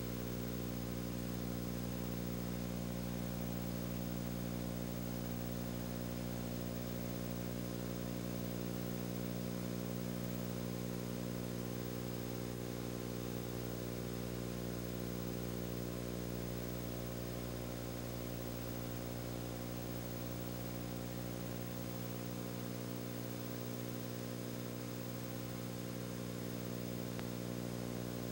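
Steady low hum with many even overtones, unchanging throughout, with no other sounds over it. It is typical of a silent home-movie transfer carrying only machine or electrical hum.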